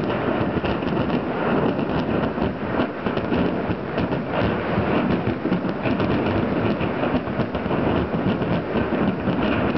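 Ammunition and gunpowder in a burning munitions depot going off: a continuous heavy rumble packed with rapid, irregular pops and crackles that never let up.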